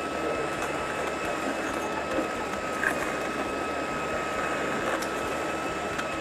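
Milwaukee M18 Fuel Angler powered fish tape running steadily, its motor whining at one even pitch as it drives the tape through the conduit, with a few faint clicks.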